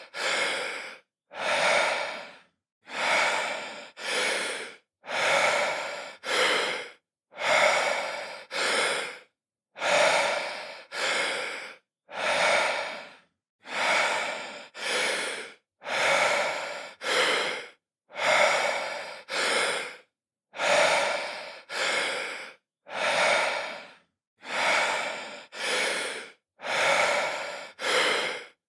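A man breathing deeply in and out, an inhale and an exhale in quick succession roughly every two seconds. Each breath is a short airy rush with dead silence between the pairs.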